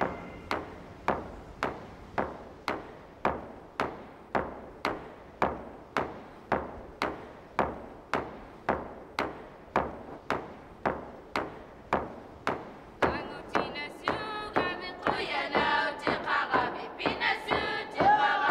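Inuit frame drum (qilaut) struck in a steady beat, about two strokes a second, each ringing briefly. Singing voices join the drumming near the end.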